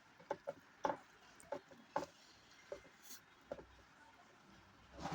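A person chewing and eating food close to the microphone: irregular soft clicks and wet mouth sounds, one to three a second.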